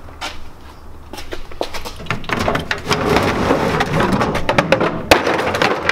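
Tools being handled in a cabinet: scattered knocks and clicks, then from about two seconds in a dense rattling clatter as a plastic case of milling-machine collets is pulled out and handled.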